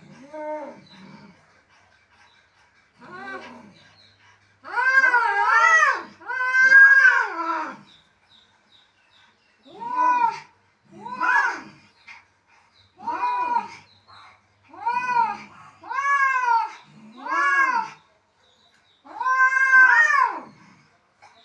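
Cats caterwauling in a fight: about a dozen drawn-out yowls, each rising and then falling in pitch, with short pauses between them. The longest and loudest come a few seconds in and again near the end.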